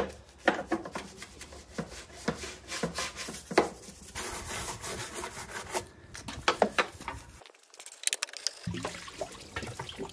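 A stiff hand brush scrubbing dirt off a petrol lawnmower's deck in quick, irregular strokes.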